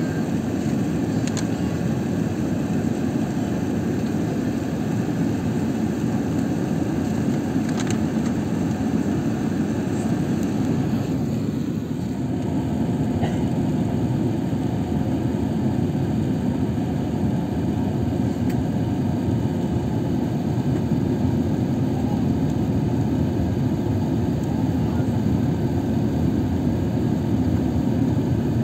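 Steady airliner cabin noise from a window seat in flight: the even drone of the jet engines and rushing airflow, with a slight change in tone about twelve seconds in.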